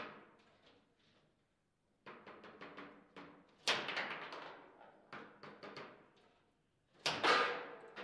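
Foosball play: the hard ball cracking off the plastic figures and the table's walls, with rods clacking, in quick irregular flurries. The loudest hard shots come a little before 4 s and about 7 s in.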